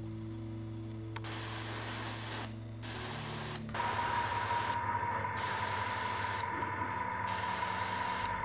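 Black paint being sprayed onto small plastic-sheet model parts: a hissing spray in several spells with short pauses between them, over a steady low hum.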